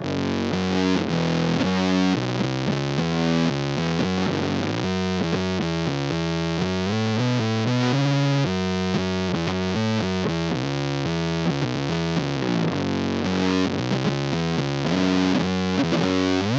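Precision bass played through a germanium-transistor fuzz pedal with the fuzz fully up: a continuous run of heavily distorted bass notes with long sustain.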